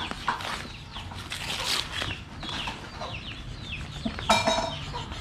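Chickens clucking, with a louder, longer call about four seconds in; paper crinkling as a paper-bag package is handled.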